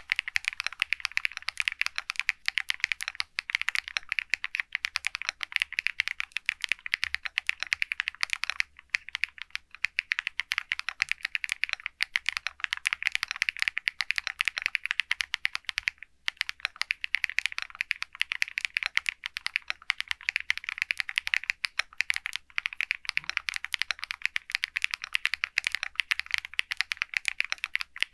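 Continuous touch-typing on an SPM AL66A full-aluminium 66-key mechanical keyboard with high-PBT Soulcat keycaps: a dense, steady stream of key clacks. The stream breaks off briefly about eight and sixteen seconds in.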